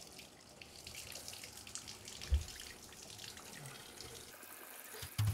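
Bathtub faucet running, its stream splashing over a rock climbing shoe held under the spout as the shoe is rinsed, with one dull thump about two seconds in.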